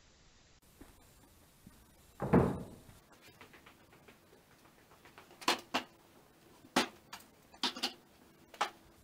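Handling noises: a dull thud about two seconds in, then half a dozen sharp knocks and clacks over the last few seconds.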